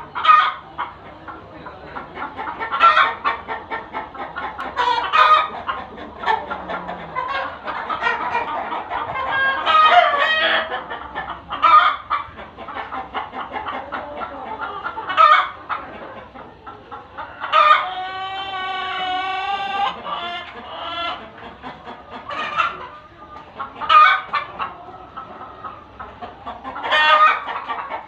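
A flock of hens clucking and cackling continuously, with loud short squawks every few seconds. A rooster crows once, one long call of about two and a half seconds, a little past the middle.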